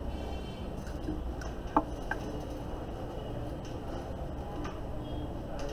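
Steady low hum of a workbench room, with a sharp click a little under two seconds in and a fainter click just after it.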